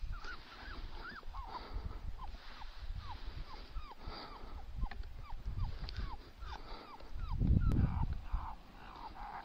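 Coyote-like whimpering yips: a regular series of short, high, falling cries, about two a second. A brief low rumble comes about three-quarters of the way through.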